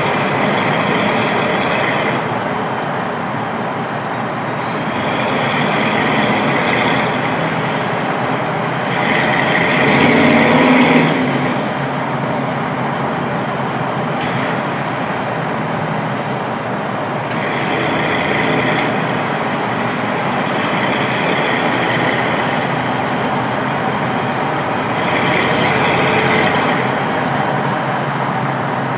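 Turbocharged 7.3 IDI V8 diesel running, its turbo whistle gliding up high and falling back about six times as it spools up and down, over steady engine and road noise.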